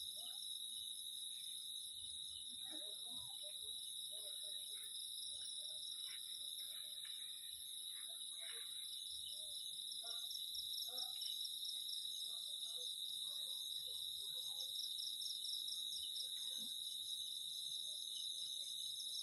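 Night chorus of crickets and other insects: several high-pitched trills at once, steady and finely pulsing.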